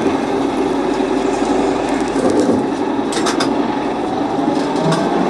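Interior running noise of a BTZ-5276-04 trolleybus in motion: a steady rumble from the road and running gear, a few quick rattling clicks about three seconds in, and a faint rising whine from the electric drive near the end.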